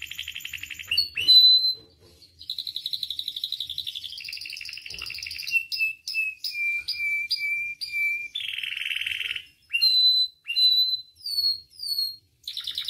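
Domestic canary singing a long, varied song: fast buzzing trills alternate with runs of clear falling notes at about three a second, and near the end come single rising whistled notes, with a brief pause about two seconds in.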